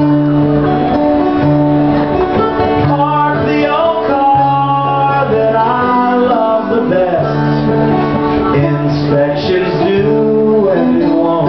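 Live acoustic band music: strummed acoustic guitar over a held bass line, with a melodic instrumental line sliding between notes.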